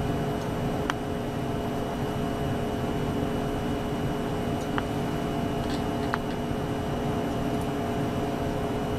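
Steady hum of running lab equipment, holding several tones, with a few faint small clicks of a hex driver working the mounting screws on a millimetre-wave module about 1, 5 and 6 seconds in.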